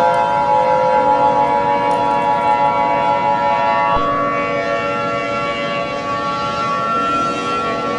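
Civil defense siren sounding several steady tones at once. A low tone joins about a second in, and a strong upper tone cuts out about four seconds in.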